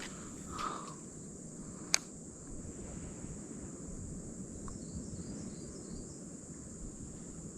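Steady high-pitched drone of insects in the surrounding bush, with a low rumble of wind or water under it. A single sharp click sounds about two seconds in.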